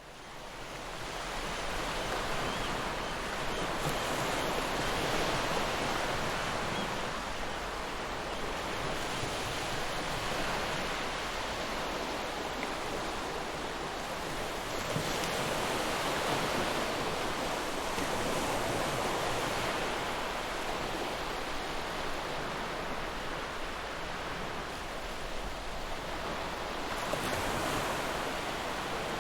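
Ocean surf washing ashore: a steady rush of waves that swells and eases every several seconds, fading in from silence at the start.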